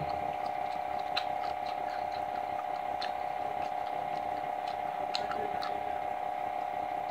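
Steady background hum with scattered small clicks from eating fried chicken: fingers tearing apart a crispy chicken thigh and mouth sounds while chewing.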